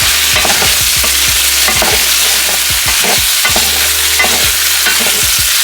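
Thin-sliced Yukon gold potatoes sizzling in hot olive oil in a pan, with frequent short clinks and scrapes of a utensil against the pan as the slices are lifted out.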